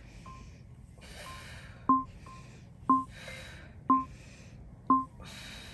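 Workout interval timer counting down: quiet ticks once a second, then from about two seconds in a loud short beep each second marking the last seconds of the set. Between the beeps come heavy breaths, exhaled through nose and mouth, from the person exercising.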